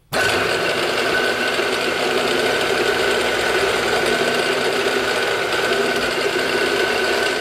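Precision Matthews PM-727M milling machine spindle switched on, starting abruptly and running steadily at about 600 rpm in high range, speed 1, with a steady high whine over its motor and drive noise.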